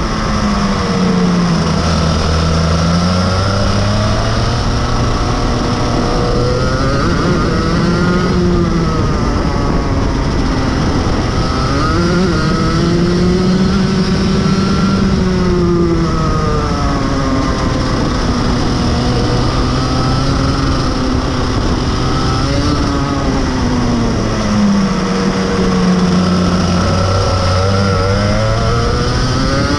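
Rotax Max Evo 125 cc two-stroke single-cylinder kart engine heard onboard at racing speed. It revs up along the straights and drops in pitch under braking into the corners, several times over.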